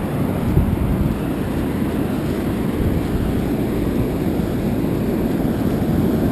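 Steady low rumble of wind buffeting the microphone, mixed with the wash of breaking surf, with a single light knock about half a second in.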